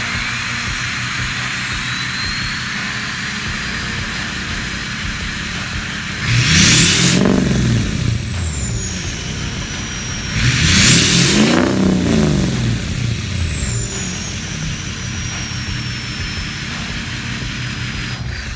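Straight-piped Ford 6.0 Powerstroke V8 turbodiesel running with a high turbo whistle over it, revved twice: the engine note rises and falls and the whistle climbs with each rev, then winds down slowly as the turbo spools down.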